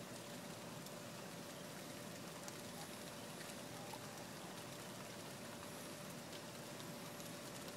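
Faint, steady rain falling, an even hiss with a few single drops ticking now and then.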